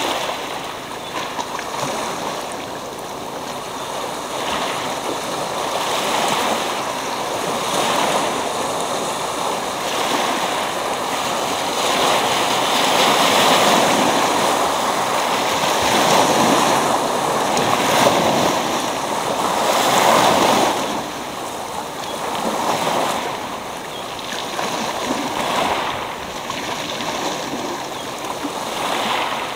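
Small sea waves breaking and washing up over a pebble beach, a continuous rushing surf that swells louder for several seconds around the middle and then eases.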